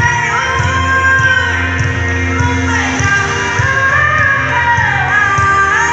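Amplified live band playing, with a singer holding long, gliding notes over a steady bass.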